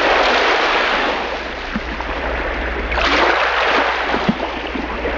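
A steady rushing noise that eases off and then swells again about three seconds in.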